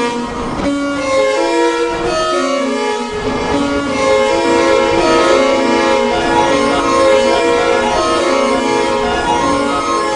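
Music from a live electronic set: held, string-like notes over a pulsing low end. The bass drops away briefly near the start and comes back about three seconds in.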